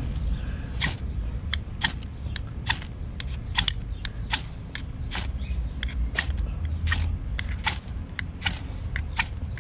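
Steel spine of a tomahawk-style survival axe scraped again and again down a ferro rod, about two short scrapes a second, striking sparks onto magnesium shavings and wood tinder to start a fire. A steady low rumble runs underneath.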